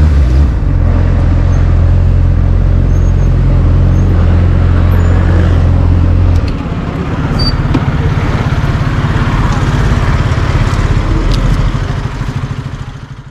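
A motor vehicle running with a heavy, steady low rumble. The rumble drops about six seconds in, and the sound fades out at the end.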